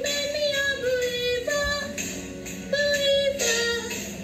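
A girl singing a slow melody without words audible as speech, in long held notes that slide between pitches, with short breaks between phrases.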